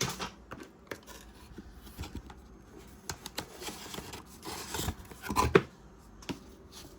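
Paper and packaging being handled and rustled, with scattered light clicks and knocks, while a keyboard kit's box contents are unpacked; the loudest cluster of handling noise comes about five and a half seconds in.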